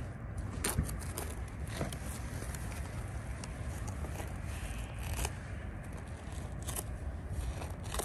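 A spade digging into field soil for a metal-detector target: scattered crunches and scrapes, with wind rumbling on the microphone.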